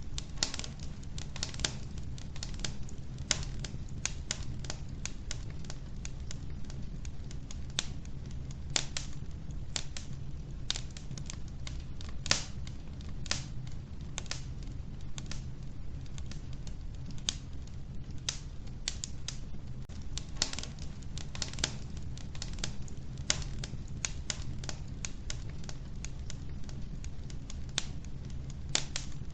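Wood fire crackling in an old wood-burning stove: irregular sharp snaps and pops, several a second, over a steady low rumble of the burning.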